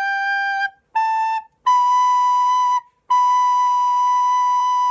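Soprano recorder playing a slow, plain phrase in separately tongued notes: the end of a held G, a short A about a second in, then two long B notes, stepping upward.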